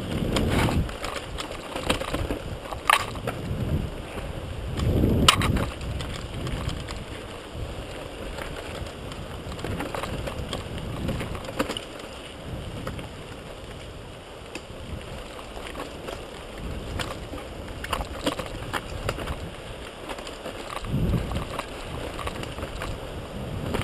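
Wind rushing over the camera's microphone as a mountain bike rides down a rough, rocky singletrack, with the bike rattling and sharp knocks scattered throughout as it rolls over stones. The rumble swells louder a few times, on the rougher stretches.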